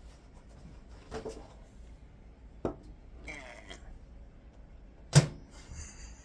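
Handling noises in a small room: a couple of soft knocks, then one sharp thump about five seconds in.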